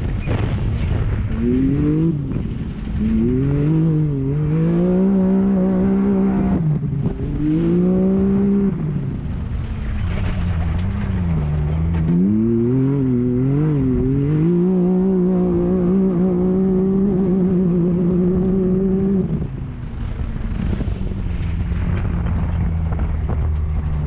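Off-road race vehicle's engine revving up and down, its pitch climbing and falling through the gears and holding high on two longer pulls, over the steady low rumble of the vehicle running over rough ground. About three-quarters of the way through, the revs drop to a lower, uneven note.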